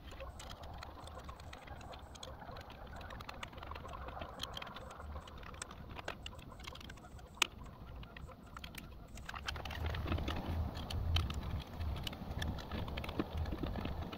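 Small irregular clicks and taps of a plastic UeeVii wireless bridge unit and its clamp being handled and fastened onto a pole mount. A low rumble joins about two-thirds of the way in.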